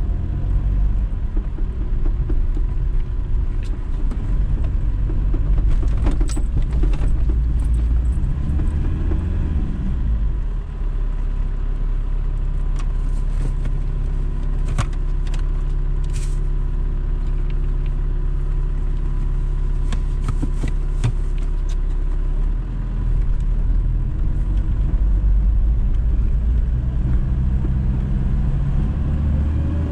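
Engine and tyre noise inside the cab of a four-wheel-drive vehicle driving a rough gravel and snow track, with the engine note shifting a few times. Scattered sharp clicks and rattles are heard a few times along the way.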